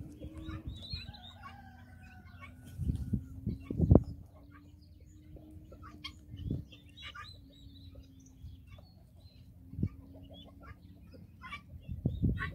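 Helmeted guinea fowl giving short, scattered chattering calls while they feed. Several loud low thumps come in between, the loudest about four seconds in.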